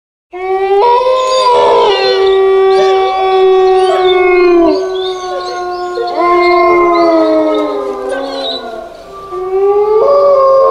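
Several wolves howling together in a chorus. Long held howls at different pitches overlap, some dropping in pitch as they end and a new one rising near the end. The howling begins a moment in, after a brief gap.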